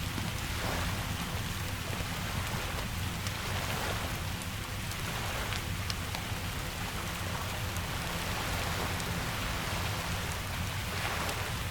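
Steady rain with a low rumble underneath, swelling and easing every few seconds, with scattered faint crackles of a wood fire.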